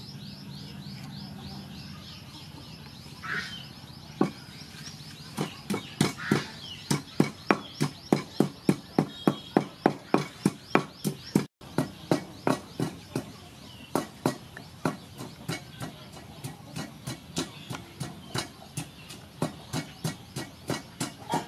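A wooden pestle pounding in a large wooden mortar: a steady run of knocks about three a second, starting about four seconds in and a little softer in the second half.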